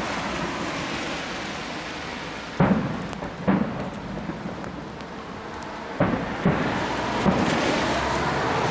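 Aerial fireworks shells bursting with deep, thunder-like booms, about five of them from two and a half seconds in, over a steady hiss.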